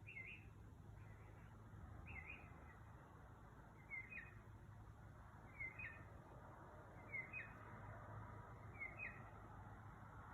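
A bird calling at night, giving the same short two-part note six times, about once every second and a half to two seconds. It is faint, over a low steady hum.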